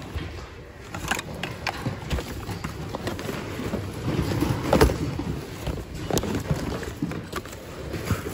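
Rummaging by hand through a bin of mixed secondhand goods: irregular rustling of cloth and plastic with scattered light knocks and clatters as items are shifted, the loudest knock about five seconds in.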